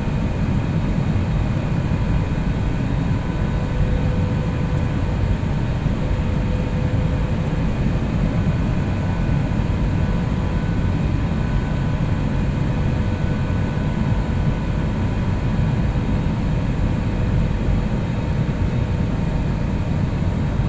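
Steady cabin noise inside a jet airliner: a constant low rumble from engines and airflow, with a few faint steady tones above it.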